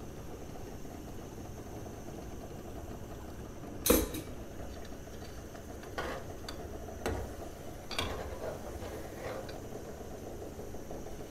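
Ground onion-tomato paste sizzling in hot oil in a metal pot, with a steel ladle knocking against the pot several times. The loudest knock comes about four seconds in, and lighter ones follow every second or so.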